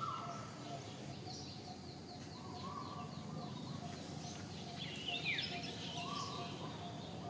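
Several birds calling over a low steady hum: one short note repeated about three times a second, a few whistled notes, and a brief chattering call about five seconds in.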